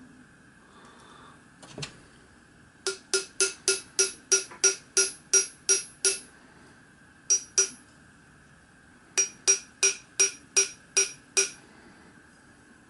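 A small ball-pein hammer lightly tapping a copper end plate into a model steam-engine boiler shell, seating it square. The taps come in three runs, about three a second, two taps alone in between, and each one has a short metallic ring.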